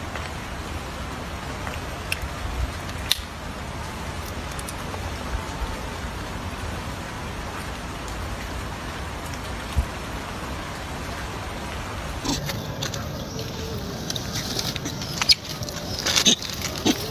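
Steady background hiss with a few isolated sharp clicks. Toward the end it gives way to a busier run of louder clicks and taps.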